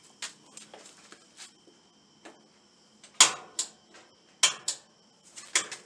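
Clicks and knocks from the clothes dryer's door being handled, faint at first, then about five sharper ones from about three seconds in. The dryer's drum motor is not yet running.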